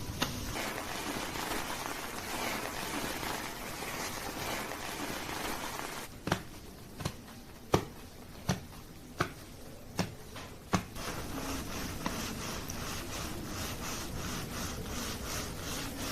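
Hands working a lathered scalp during a shampoo and head massage. A steady wet rustling scrub gives way to about seven sharp pats a little under a second apart, then a quicker rhythmic scrubbing of about four strokes a second.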